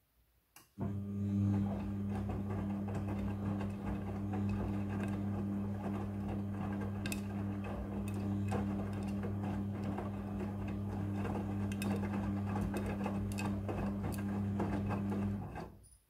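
Midea front-loading washing machine's drum motor starting about a second in and turning the drum with the wet load for about fifteen seconds: a steady hum with scattered clicks and knocks from the tumbling clothes, stopping suddenly near the end. This is one tumble of the wash cycle.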